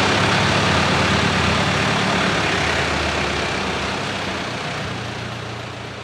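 An engine idling steadily with a rushing noise over it, slowly fading out toward the end.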